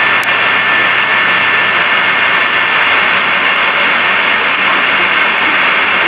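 Steady hiss of a band-pass-filtered, re-amplified recording, with a faint steady whistle-like tone running through it and a single click shortly after the start.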